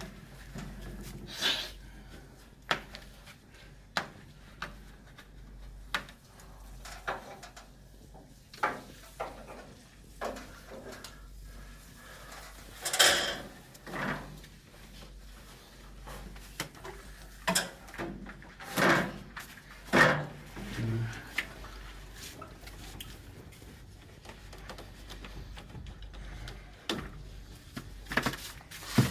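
Scattered knocks, clicks and clatter of tools and metal hardware being handled during cable lug work, with a few longer, louder scraping bursts around halfway and two-thirds of the way through.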